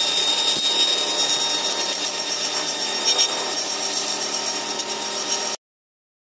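Handheld rotary tool spinning a sanding drum against wood: a steady high whine over rasping as the drum sands a curved edge. It cuts off suddenly near the end.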